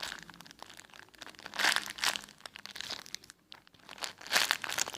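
Hands squeezing and handling a small foam bun squishy close to the microphone: crinkling, rubbing rustle with small clicks, loudest in two bursts, about a second and a half in and near the end.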